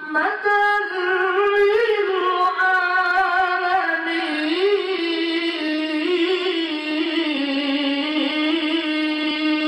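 A man's voice singing a slow, wavering melismatic chant into a microphone, ornamenting each note and ending on a long held note.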